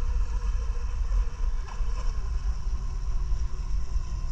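Twin brushless motors of a Pro Boat Miss Geico 36-inch RC catamaran whining faintly from far out on the water as it runs, over a loud steady low rumble.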